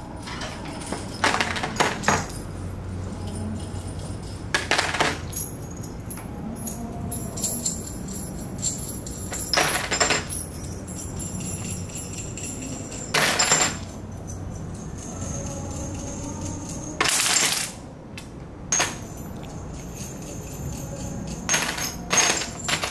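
Steel bolts, nuts and washers clinking and clattering as they are unscrewed by hand and dropped into a plastic tub. A short clatter comes every few seconds, about seven in all, over a low steady hum.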